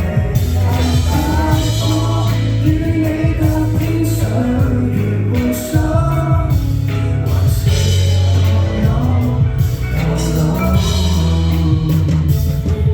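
A song playing: a singing voice over instrumental accompaniment with a steady beat.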